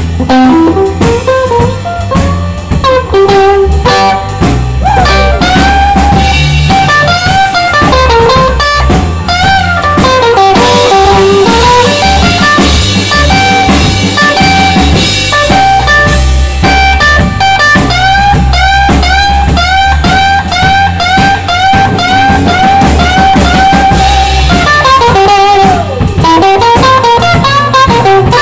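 Live blues band with an electric guitar solo of bent notes over electric bass and drum kit. In the second half a short bent-note lick repeats about twice a second for several seconds.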